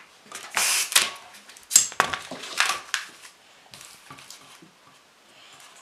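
A long latex twisting balloon rubbing against the hands as it is handled and tied off, in irregular bursts that come mostly in the first half.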